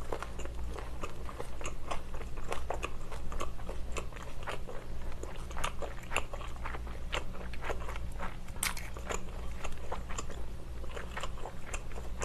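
Close-miked biting and chewing of a spicy grilled chicken skewer: a steady run of many small, sharp mouth clicks and smacks over a faint steady low hum.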